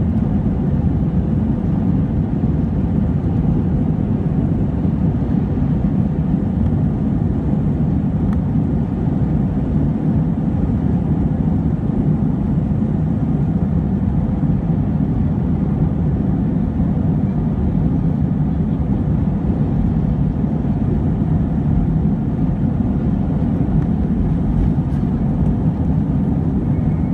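Airbus A320-232's IAE V2500 turbofans at takeoff thrust during the takeoff roll, heard inside the cabin over the wing as a loud, steady deep rumble.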